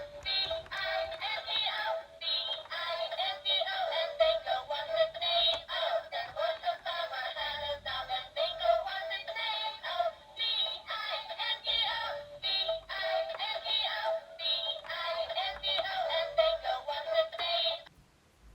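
Music with a synthetic-sounding sung melody, thin with no bass, that cuts off abruptly near the end.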